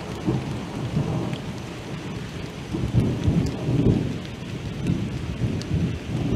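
Rain falling on forest foliage, with scattered drops striking close by, over an uneven low rumble of thunder during a thunderstorm.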